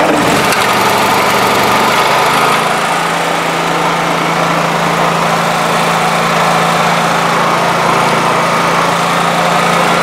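Honda EB5000 generator's engine starting and settling within a second or two into a steady run.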